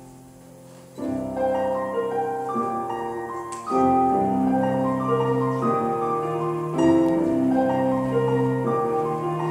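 Piano music: a held chord fading away, then about a second in the piano comes in loudly with a run of notes, with stronger chords entering near four and seven seconds.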